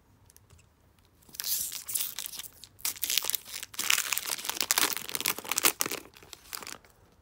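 A foil-lined hockey card pack wrapper being torn open and crinkled by hand. It comes in crackling spurts from about a second in until just before the end, with a brief pause near the three-second mark.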